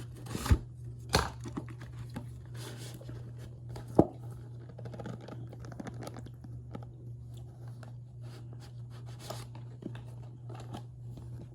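Chunks of cornstarch crunching and crumbling with fine squeaky crackles, punctuated by a few sharp cracks about half a second in, just after a second, and again about four seconds in. A steady low hum sits underneath.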